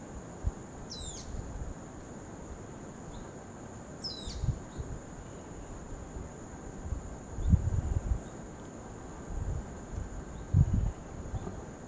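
Insects trilling steadily at two high pitches, with two short falling bird chirps about one and four seconds in. Several low thumps, the loudest sounds, come in the second half.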